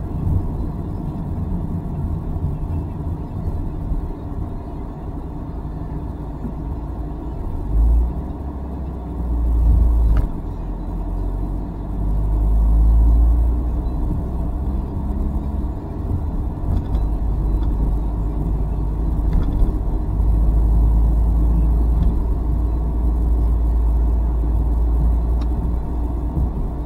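A car driving, heard from inside its cabin: a steady low rumble of engine and road noise that swells louder several times.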